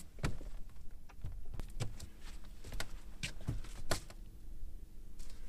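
A string of sharp clicks and knocks in a boat as a small bass is swung aboard and handled, over a faint steady hum.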